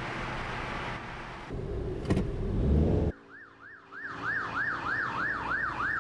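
Road traffic noise with a low rumble that swells and cuts off abruptly about three seconds in. Then an emergency vehicle's siren starts, a fast yelp rising and falling two to three times a second.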